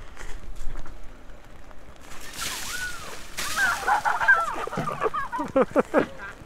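Cold water poured from plastic tubs splashing over a person's head, about two seconds in, and again a moment later. She answers with high shrieks and then laughter.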